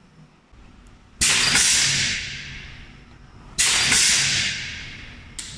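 Two sudden bursts of compressed-air hiss, each fading out over about two seconds, from the pneumatic system of an aerosol valve inserting and crimping machine venting air.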